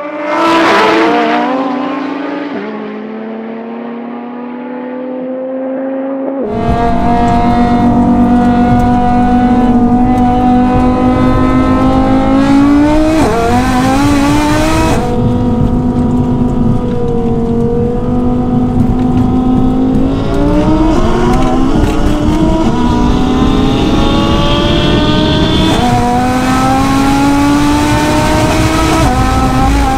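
Built Audi TT RS's turbocharged five-cylinder engine heard from inside the cabin. It cruises at rolling speed, then goes to full throttle about six seconds in and pulls hard, its pitch climbing and dropping back at each of several upshifts.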